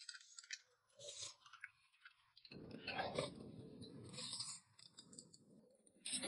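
Close-up eating sounds: chewing and slurping of noodles and spooned soup, with light clicks of chopsticks and a spoon. A denser stretch of slurping runs through the middle, and there is a short sharp burst near the end.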